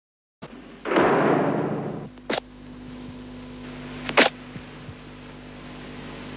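Prison door and lock sound effects: a loud metal clang that dies away over about a second, then sharp clacks at about two-second intervals, over a steady low hum.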